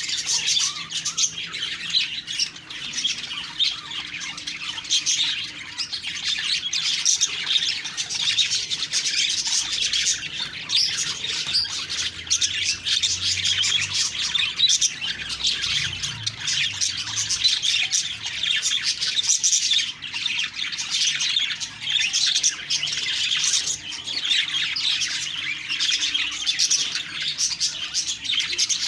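Budgerigars (budgies) chattering continuously in a dense, unbroken stream of short, high chirps and calls.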